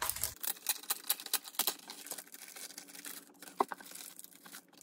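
Light rustling and small irregular taps of paper and plastic being handled, as the packet holding a brochure's photocard is picked up and worked open.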